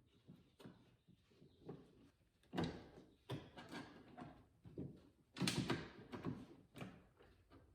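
Irregular knocks and clunks of parts being handled and fitted inside a car door during lock actuator reinstallation, the two loudest about two and a half and five and a half seconds in.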